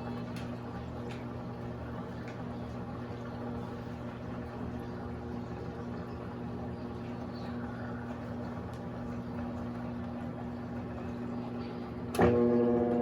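Electrolux LAC16 washing machine, fitted with the LT13B's 1/4 hp WEG motor, running with a steady low hum. About a second before the end a sharp click, and a louder motor hum with more tones starts up.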